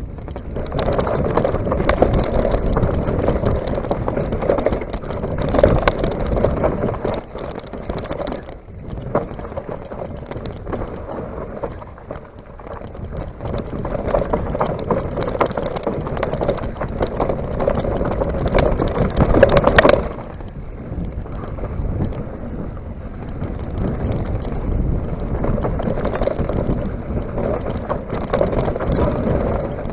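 A mountain bike rattling and knocking as it rides fast down a bumpy dry dirt trail, its tyres rolling on loose soil, with wind buffeting the microphone. The loudest knock comes about two-thirds of the way through, after which the noise runs somewhat quieter.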